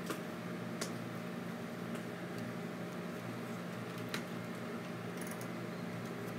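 Steady low electrical hum and hiss, with three short clicks from polaroid prints being handled and shuffled by hand, one right at the start, one a moment later and one about four seconds in.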